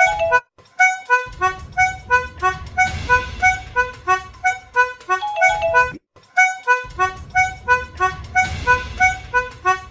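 A cheap $1 toy piano playing a quick, reedy melody, about three or four notes a second over a low hum. The phrase breaks off briefly and repeats about every five and a half seconds.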